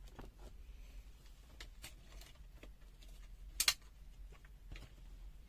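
Quiet handling of a multimeter and its test leads: a few faint clicks and one sharper click a little past halfway, over a low steady hum.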